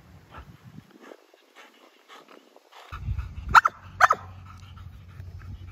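Labrador retriever barking twice, about half a second apart.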